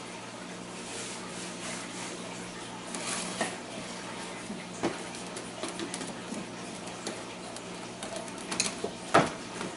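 Scattered light clicks and knocks of kitchen utensils and containers being handled, with a sharper knock near the end, over a steady low hum.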